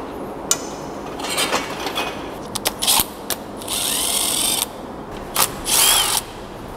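Compact Milwaukee cordless impact wrench undoing bolts on an engine's front accessory pulleys, in several short bursts, the longest about a second long near the middle, with sharp metal clicks between them.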